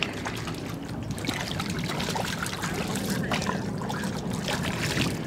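Water splashing and trickling as a hand-held piece is dipped and worked in the water beside a boat's hull: a busy stream of small irregular splashes.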